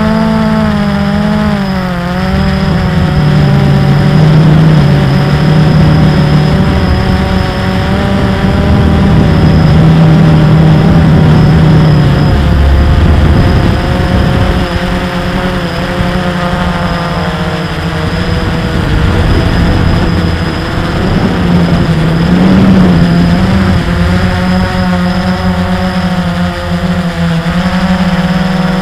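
Small drone's electric motors and propellers, heard from its onboard camera: a loud, steady buzz whose pitch shifts up and down as the aircraft manoeuvres.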